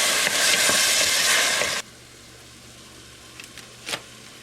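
Rough-chopped tomatoes sizzling loudly in a very hot pan, stopping abruptly a little under two seconds in. After that, a quiet kitchen background with a faint steady hum and a few light clicks and a tap.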